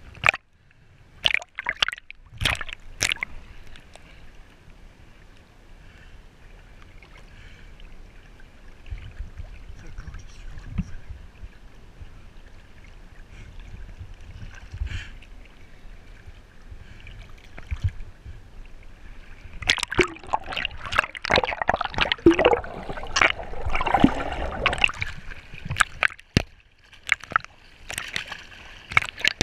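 Seawater splashing and sloshing around a camera held at the surface by a swimmer, the sound going muffled as the lens dips under. There are a few sharp splashes in the first seconds, a quieter stretch of lapping, and heavy splashing from about two-thirds of the way through.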